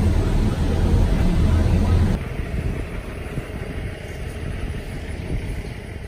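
A truck running on the road, with a loud, low engine drone. About two seconds in it drops suddenly to a quieter rumble.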